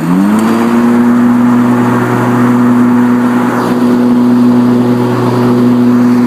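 Mower deck of an electric-converted lawn tractor, driven by a Motenergy ME1004 motor, as the blades are engaged. A whirring hum rises in pitch over about the first half second as the blades spin up, then holds steady while the motor draws the extra load of the blades.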